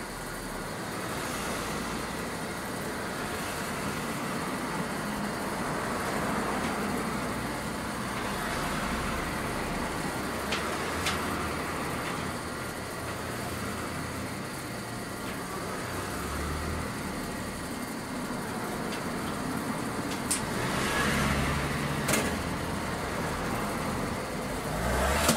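City route bus driving, heard from inside the cabin: steady engine and road noise that swells and eases, with a few sharp clicks or rattles around the middle and near the end.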